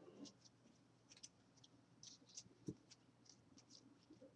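Faint, irregular soft clicks and flicks of Topps baseball cards being slid off a stack one by one by hand, with a single soft low thump about two and a half seconds in.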